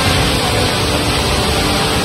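Steady roar of a flash-flood torrent of muddy water rushing past, with a background music track underneath.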